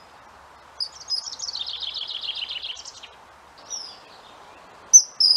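Common kingfisher calling: shrill, high whistled notes, one near four seconds in and two sharp, loud ones near the end. A fast run of descending notes fills the stretch from about one to three seconds in. A steady hiss runs underneath.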